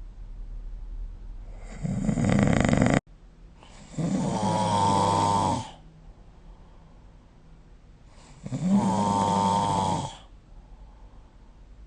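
A sleeping person snoring: a shorter breath that cuts off abruptly about three seconds in, then two long snores about four and a half seconds apart, each lasting under two seconds.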